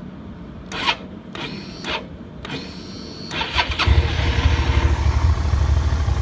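Suzuki SV650S 645 cc V-twin being started: a few clicks and short whirs as it is switched on and cranked, then the engine catches about four seconds in and settles into a steady, pulsing idle through the stock muffler.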